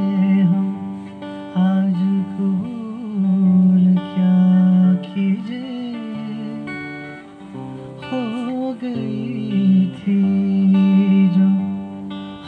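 A man singing to his own acoustic guitar, holding long notes.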